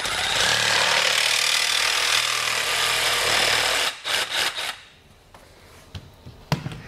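Compact cordless reciprocating saw cutting through white PVC pipe, running for about four seconds and then stopping abruptly. A few light knocks follow as the cut pipe is handled.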